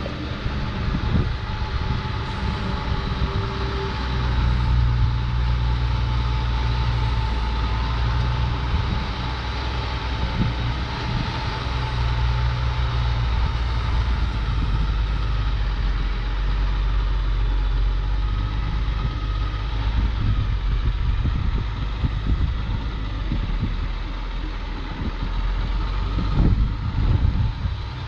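Kenworth T880 semi-truck's diesel engine running steadily as the tractor pulls a loaded lowboy trailer slowly across a dirt yard.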